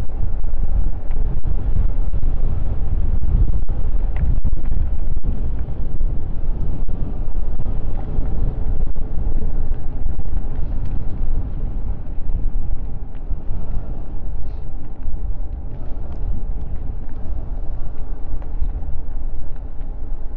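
Wind rushing over the microphone of a moving e-bike, with tyre and road noise: a loud, steady low rumble.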